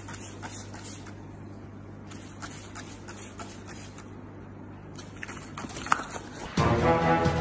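Trigger spray bottle squirting several times in short hissing spurts over a steady low hum. Loud music starts near the end.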